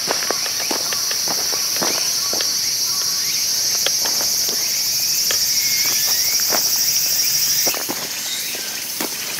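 A steady, high-pitched insect chorus that stops abruptly about three-quarters of the way through. Under it, scattered clicks and knocks from a tarp being handled and footsteps on gravel.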